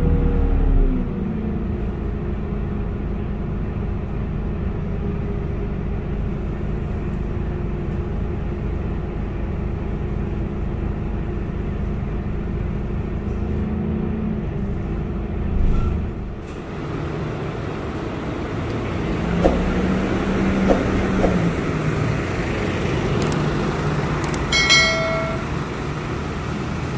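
Scania K230UB city bus's diesel engine heard from inside the cabin, dropping in pitch as the bus slows and then running with a steady low drone. About 16 seconds in there is a short burst of noise, after which a more open engine hum rises and falls, and a short high electronic beep sounds near the end.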